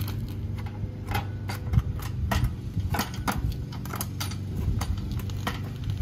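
Irregular light metallic clicks and taps as a licence plate, with its bolts and washers, is fitted against a boat trailer's plate bracket. A steady low hum runs underneath.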